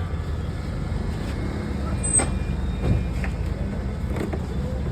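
A car engine running steadily, with a few short knocks and clicks over it.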